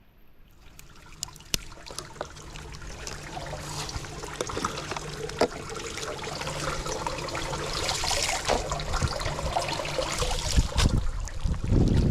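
Floodwater trickling and gurgling down a storm drain, growing steadily louder, with scattered clicks and a few low thumps near the end.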